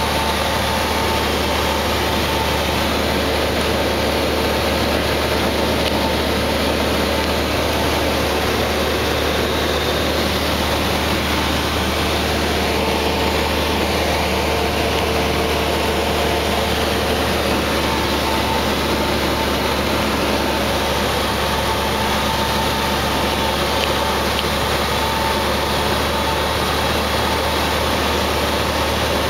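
Steady drone of a light piston airplane's engine and propeller heard inside the cockpit during a descent, with faint steady tones humming above the low rumble.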